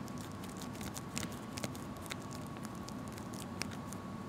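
Fingernails picking and scratching at plastic shrink wrap on a box, a rapid run of irregular crinkling clicks.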